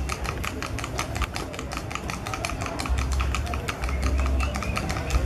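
Hooves of a Colombian trocha horse striking the hard sounding track in its trocha gait, a rapid, very even clatter of hoofbeats.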